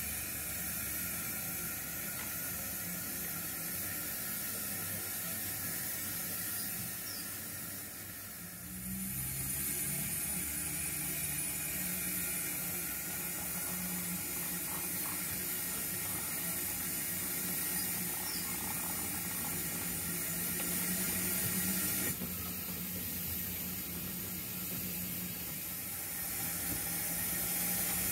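O gauge model trains running on the layout: a steady hiss with a low hum underneath, shifting at a couple of points as the view changes.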